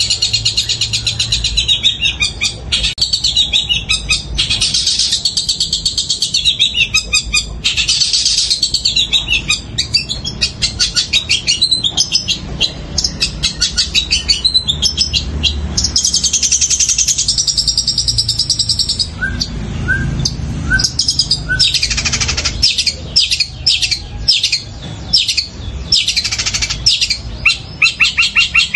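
Caged long-tailed shrike (cendet) singing loudly in long runs of rapid, high chirps with only short breaks, its song full of mimicked Eurasian tree sparrow calls.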